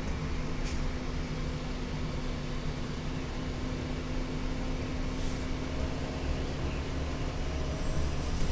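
Cummins ISL inline-six diesel engine and Allison automatic transmission of a 2008 Gillig Phantom transit bus running steadily as the bus drives, heard from inside the passenger cabin with a constant low hum. A couple of faint clicks come about a second in and about five seconds in.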